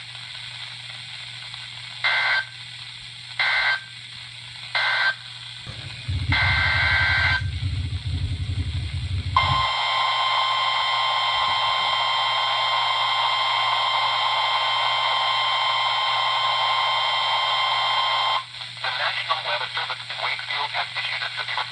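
NOAA Weather Radio emergency alert: three short two-tone SAME data bursts, then a low buzz with a longer burst over it, then the steady 1050 Hz warning alarm tone held for about nine seconds. A voice starts reading the severe thunderstorm warning near the end.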